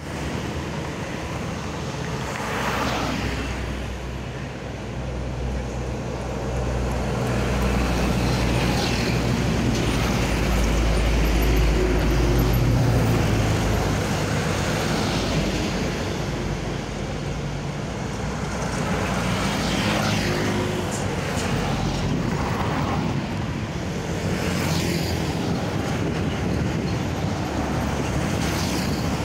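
Road traffic close by: heavy trucks, cars and motorcycles passing one after another, each passing swelling and fading. A heavy truck's deep engine rumble is loudest a little before the middle.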